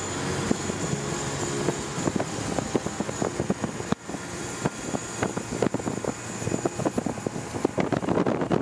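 Car driving along a road, heard from inside: steady engine and road noise with frequent small knocks and rattles.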